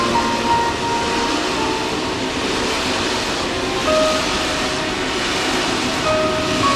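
Passenger train coaches running past at speed, a steady rush of wheel and rail noise, with background music of long held notes laid over it.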